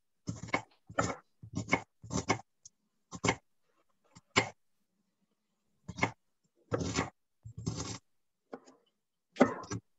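Large chef's knife chopping cauliflower on a wooden cutting board: about a dozen irregular chops, with a pause of a second or so near the middle.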